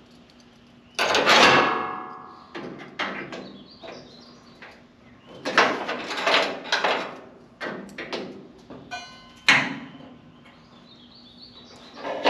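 Sheet-metal body panels knocking and clanking as a new rear panel is trial-fitted and clamped to the car's body. The loudest hit, about a second in, rings on briefly like thin steel, and a short rattle comes near the end.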